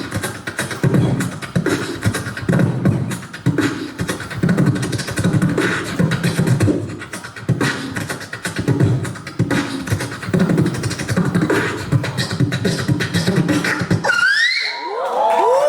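Beatboxer performing a fast rhythmic beat of deep bass kicks and sharp mouth clicks. About fourteen seconds in, the beat stops and gives way to swooping pitched sounds that rise and fall.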